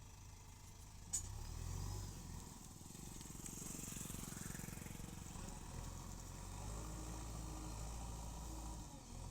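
JCB 3DX backhoe loader's diesel engine running with a low, steady drone that swells and eases, and a single sharp click about a second in.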